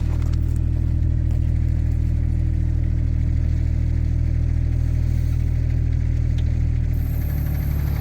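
Kubota mini excavator's diesel engine running steadily, its note changing about seven seconds in.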